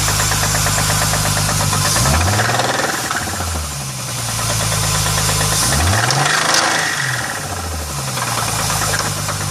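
Chrysler 300M's 3.5-litre V6 running with a rhythmic knock, revved up and back down twice, about two seconds in and again about six seconds in. The owner suspects rod knock and feels that it is internal.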